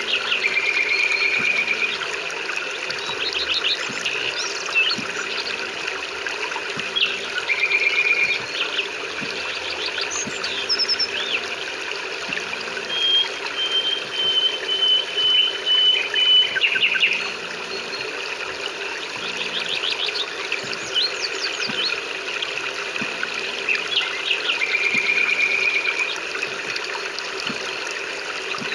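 Birds chirping and trilling over a steady hiss of rain: short buzzy trills recur every few seconds, with one longer steady high note near the middle.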